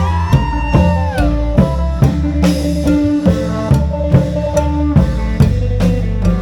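Isan folk music: klong yao long drums beat a steady rhythm under held melodic tones, with one falling glide a little over a second in.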